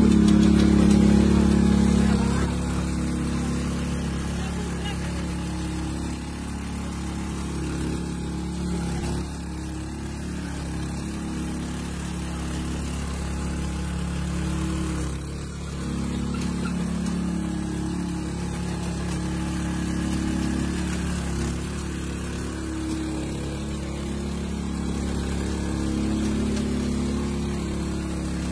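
Komatsu micro excavator's engine running steadily while the machine travels on its rubber tracks. It is louder for the first two seconds, with a brief dip about fifteen seconds in.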